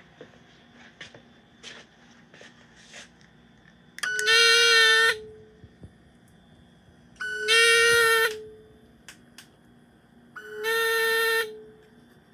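Electronic intruder-alert alarm of a customized GI Joe Big Trapper toy vehicle: an alarm tone about a second long sounds three times, about three seconds apart, each dipping slightly in pitch as it cuts off. A few faint clicks come before the first tone.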